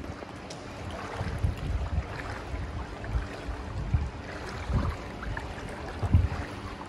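Floodwater sloshing and splashing as someone wades through it, in uneven low surges with each step.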